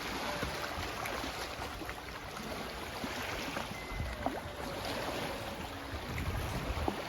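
Steady wash of small waves lapping at a lake shore, with scattered small clicks.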